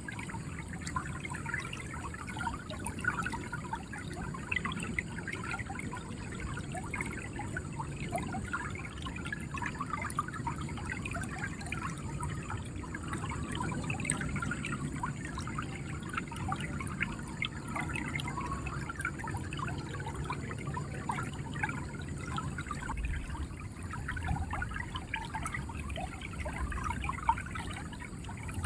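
River water flowing and gurgling over stones, a steady stream of small splashes and trickles with a low rumble beneath.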